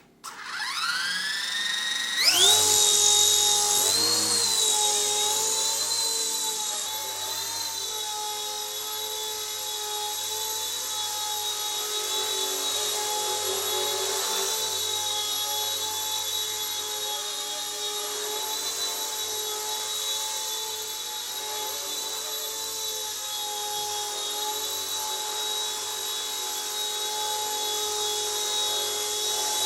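RC Era C138 1/33-scale Bell 206 micro RC helicopter spooling up at take-off: a whine rising in pitch over about two seconds. Then a steady high-pitched whine of motor and rotor while it hovers, the pitch wavering slightly with throttle changes.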